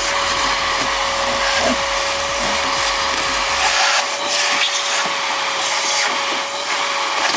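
Canister vacuum cleaner running with a steady whine over its suction noise, the hose nozzle working in a car's footwell.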